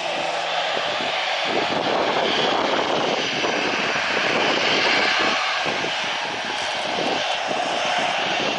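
Jet airliner's engines running loudly as it passes close by, a steady rushing noise, with gusts of wind buffeting the microphone.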